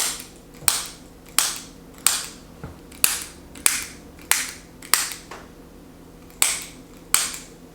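Chiropractic activator adjusting instrument firing: about ten sharp, spring-loaded clicks, roughly two-thirds of a second apart, with a pause of about a second a little past the middle.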